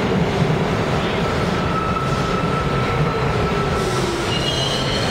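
New York City Subway train rolling into a station and slowing, a steady rumble of cars over the rails with a motor whine that falls in pitch. A high-pitched brake or wheel squeal sets in near the end as it comes to a stop.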